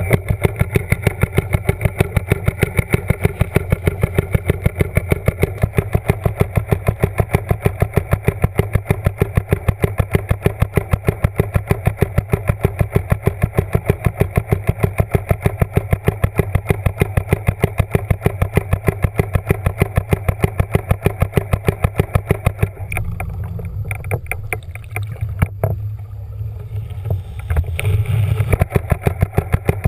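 A motor running with a fast, even ticking over a steady low hum, heard underwater. The ticking drops out for about five seconds near the end, then comes back.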